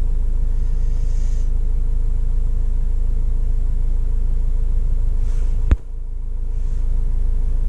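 Vauxhall Vivaro's 2.5-litre turbodiesel engine idling steadily with a low rumble, heard from inside the cab. It runs smoothly after a new EGR valve has been fitted. Near the end there is a single sharp knock.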